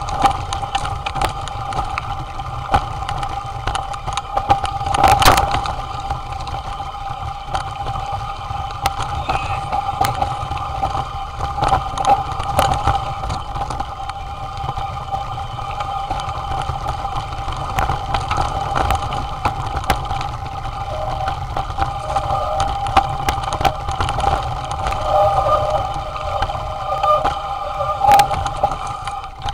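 Mountain bike descending a rocky trail, heard from a camera that rides along with it: steady rattling and rumbling with many sharp knocks as the bike runs over stones, and a steady whine throughout.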